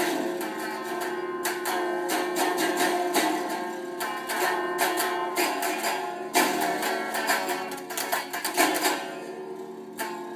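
Music with a plucked string instrument: guitar-like strummed and picked notes over sustained tones. It gets quieter near the end.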